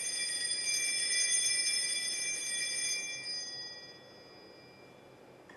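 Altar bells rung at the elevation of the chalice, signalling the consecration: a bright, shimmering jingle of several high bell tones that dies away about four seconds in.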